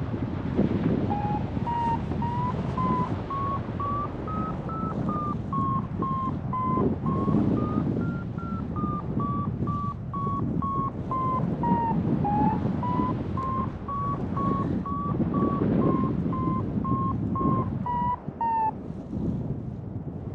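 Paraglider variometer sounding a steady run of short beeps, its pitch rising and falling with the climb rate: the sign of climbing in lift. The beeps stop near the end. Under them, wind rushes over the microphone.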